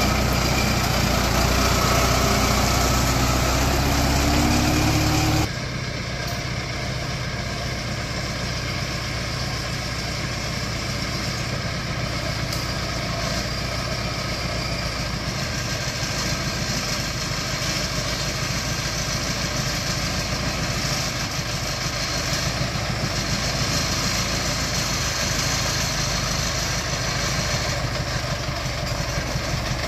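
Engine of a custom-built cargo truck running steadily as it crawls along at very low speed. About five seconds in, the sound drops abruptly to a quieter, rougher steady engine note.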